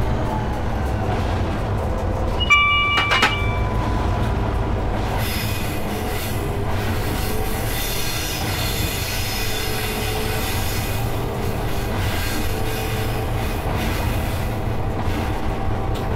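Diesel freight train running along the track, heard from the cab as a steady low rumble. A brief metallic ringing tone sounds about two and a half seconds in, and from about five seconds in the wheels squeal on the curve for several seconds.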